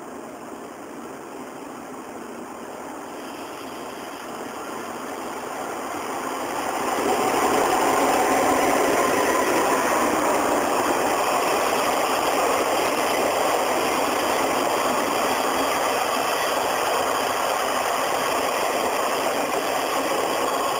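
The Ginga overnight express train passing close by: a steady rumble of wheels on rail that swells about seven seconds in and then holds loud and even.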